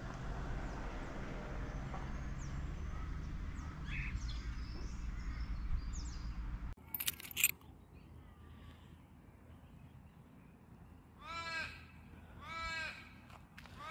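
A steady low rumble that cuts off abruptly about seven seconds in, followed by a brief crackle. Then a crow caws three times, each a drawn-out call, about a second and a half apart.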